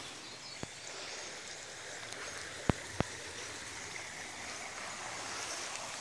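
Spring water running over stones in a shallow brook, a steady gentle rushing. Three sharp clicks cut through it, the two loudest about a third of a second apart near the middle.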